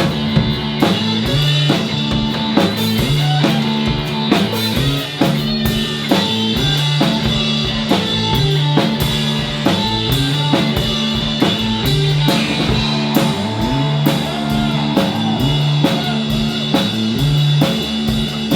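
Rock band playing an instrumental passage live, with drum kit keeping a steady beat under guitar and low sustained notes.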